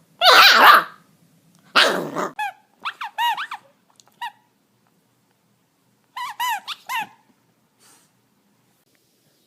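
A puppy barking: two harsh barks near the start, then two runs of short, high-pitched squeaky yips.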